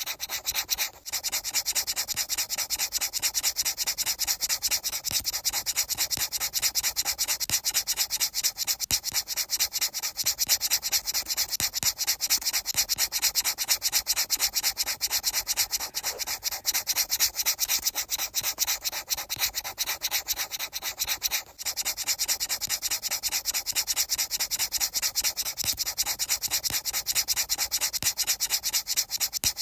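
Fast, even rubbing strokes, many a second, breaking off briefly twice.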